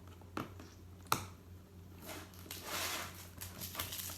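Packaging being handled as a boxed ring light is opened: two sharp clicks in the first second or so, then rustling for the last couple of seconds.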